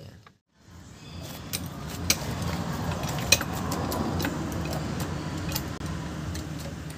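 Hydraulic floor jack being pumped by its long handle under the van, with irregular metallic clicks and rattles over a steady low hum.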